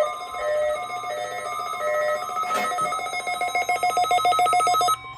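Electronic alarm-style beeping tones: a repeating two-note beeping figure, then, after a click about two and a half seconds in, a fast run of rapid beeps that cuts off abruptly near the end.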